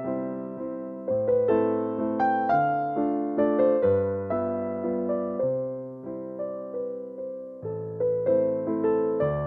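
Background piano music: a gentle melody of struck notes that fade, over low bass notes that change every second or two.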